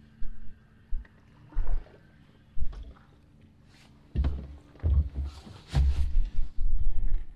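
Wind buffeting the microphone in short gusts. More than halfway through come several sharp knocks and a brief hiss as a hooked crappie is swung out of the water and handled in the boat.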